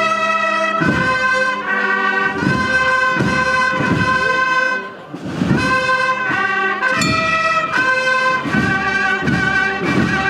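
Brass band playing a processional march: long held brass chords with low beats recurring underneath.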